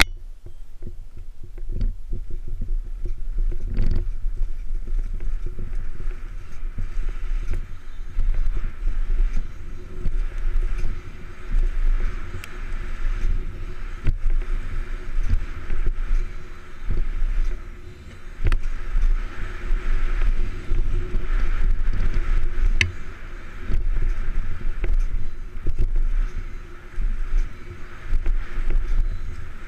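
Mountain bike ridden fast down a dirt forest trail, heard from a helmet-mounted camera: rushing wind on the microphone and tyre noise on dirt, with frequent sharp knocks and rattles from the bike over bumps. The rush eases briefly a couple of times.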